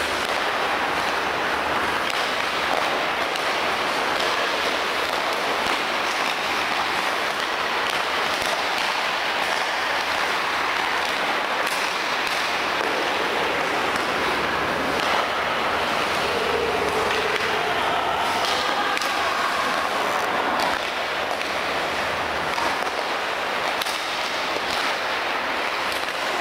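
Ice hockey practice on the rink: a steady scrape of skate blades on the ice, with scattered sharp cracks of sticks striking pucks.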